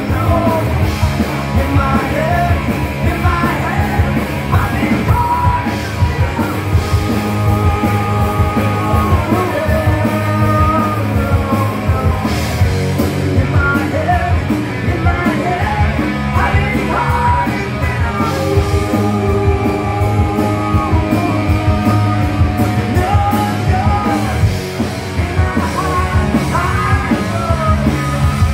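Live rock band playing loud and steady: electric guitars, bass and drums, with a lead singer.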